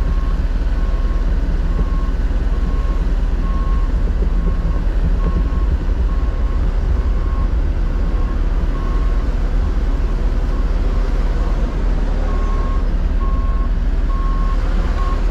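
A heavy vehicle's engine rumbling steadily while a backup alarm beeps a little more than once a second. The beeping fades out for a few seconds about two thirds of the way in, then comes back.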